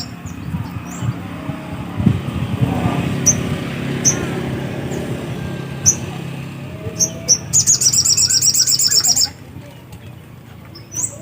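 Sogok ontong songbird calling: single sharp high chirps, then a fast trill of rapidly repeated high notes lasting about a second and a half near the end. A low steady rumble underlies it and stops as the trill ends.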